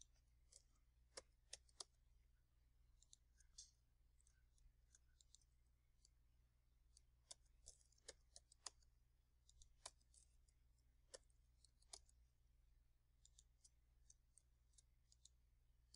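Faint computer keyboard and mouse clicks: scattered single taps and short clusters of keystrokes, over a low steady hum.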